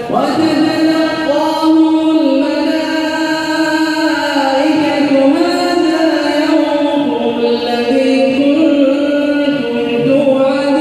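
A man reciting the Quran in Arabic as a slow melodic chant. A new phrase starts at the beginning and is drawn out in long held notes that bend up and down in pitch.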